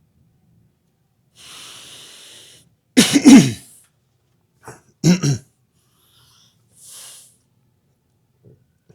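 A man draws a breath, then lets out two loud, sharp coughs or sneezes, the first the louder, each dropping in pitch, followed by a softer breath.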